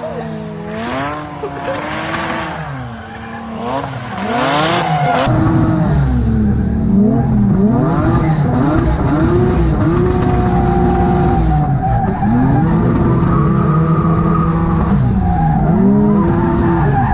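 Twin-engine, twin-turbo Mazda MX-3 drifting, its engines revving up and down over and over with tyre squeal.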